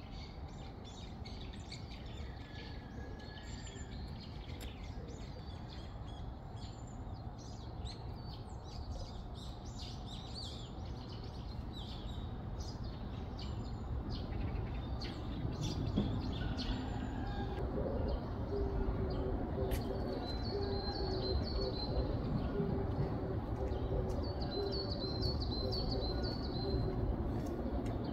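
Small songbirds chirping and twittering over a steady low outdoor background rumble that grows louder about halfway through.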